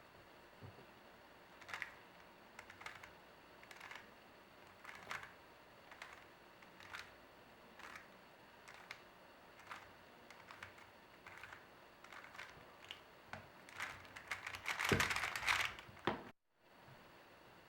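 Plastic Rubik's cube being turned by hand while G-perm algorithms are executed: scattered clicks of single layer turns, then a fast flurry of turns near the end.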